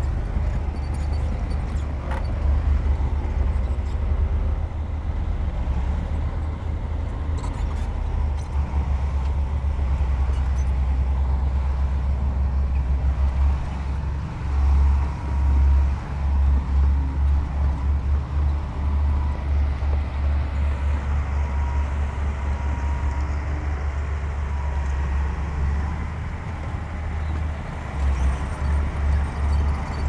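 Diesel engine of a Komatsu D60P bulldozer running with a deep rumble. The rumble swells and eases over and over, most strongly from about halfway through.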